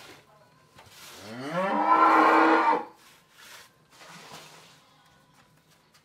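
A cow mooing once: one long, loud call that rises in pitch and then holds, from about a second in until near the three-second mark.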